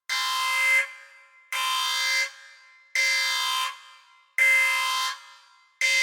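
Spaceship alarm sound effect: a steady-pitched alarm tone rich in overtones, sounding in repeated blasts of about three-quarters of a second, one every second and a half, five in all. Each blast fades out with a short echo.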